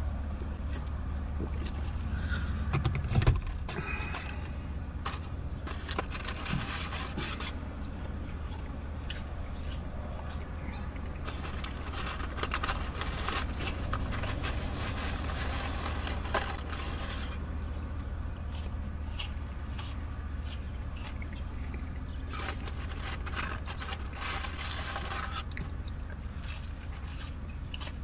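Someone eating french fries in a car: three stretches of crackly rustling and chewing close to the microphone, with a knock about three seconds in, over a steady low hum in the car.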